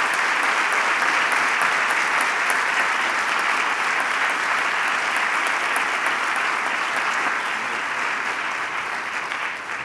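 Audience applauding steadily with many hands clapping, tapering off near the end.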